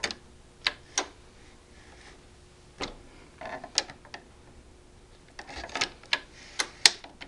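Steel barrel nut wrench clicking against an AR-15 barrel nut as it is worked around and tightened: about ten sharp metallic clicks at uneven intervals.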